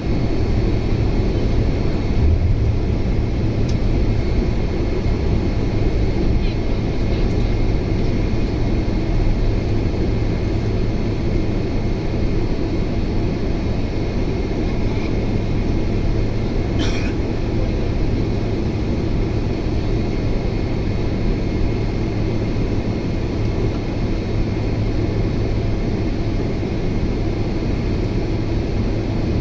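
Boeing 767's General Electric CF6 turbofan engines running steadily, heard from inside the cabin as a deep, even roar with a thin steady high whine over it. A brief click about seventeen seconds in.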